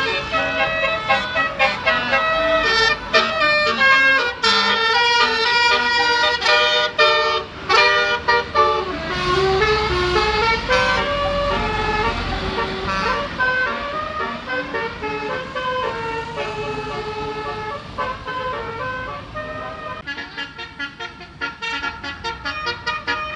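Indonesian bus 'telolet' horn: a multi-tone musical air horn playing a melody, several notes sounding together and changing pitch in quick steps, in long repeated phrases.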